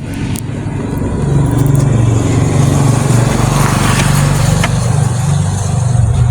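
A motor engine running steadily close by, growing louder about a second and a half in and easing off near the end.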